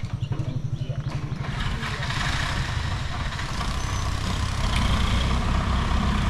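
Engines of waiting road vehicles, auto-rickshaws and a truck among them: a fast, even idle at first, then traffic noise that rises and grows louder from about a second and a half in as the vehicles pull away across the crossing.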